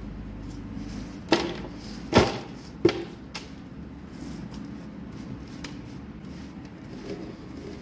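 Three sharp knocks less than a second apart, then a fainter click, from handling the parts of a rusty manual meat grinder, over a steady low hum.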